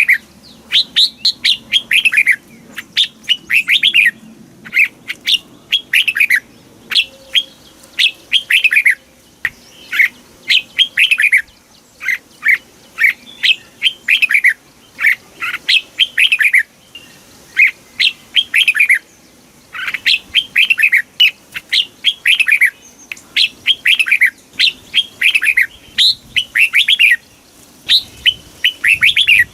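Red-whiskered bulbul singing: short phrases of quick, downward-slurred whistled notes, repeated over and over with brief pauses between phrases.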